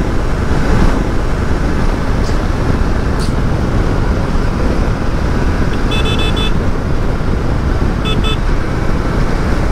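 Motorcycle on the move: a steady rumble of engine, road and wind on the microphone. A vehicle horn toots twice, a short cluster of beeps about six seconds in and a shorter one about two seconds later.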